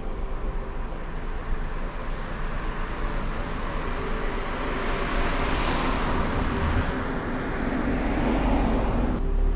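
Road vehicle noise that swells through the middle and cuts off abruptly near the end.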